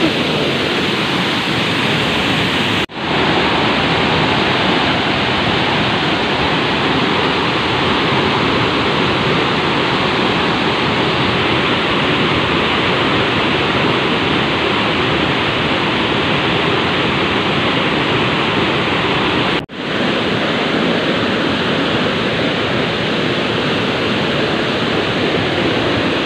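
Steady rushing of a large waterfall heard close up, a dense even wash of falling water. It drops out briefly twice, about three seconds in and again near twenty seconds.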